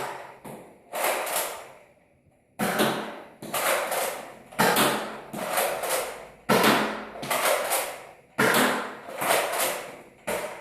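Toy Nerf blaster being primed and fired again and again: a string of sharp mechanical sounds, about one a second and mostly in pairs, each starting suddenly and dying away quickly.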